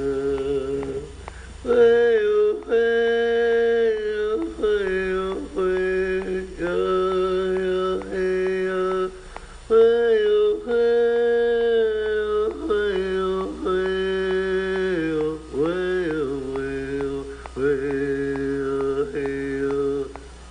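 Two voices chanting together without recognisable words. They hold long sustained notes that step and glide up and down in pitch, with short breaks for breath between phrases.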